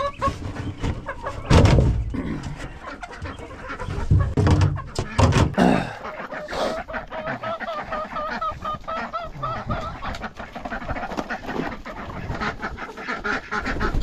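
Chickens clucking and calling, with one long drawn-out call through the second half. Repeated knocks and clatter, loudest about a second and a half in and again around four to five seconds.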